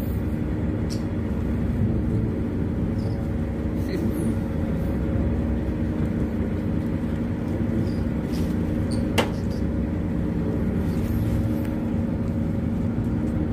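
A boat's engine running steadily, an even low hum with several fixed pitches, with a sharp click about nine seconds in.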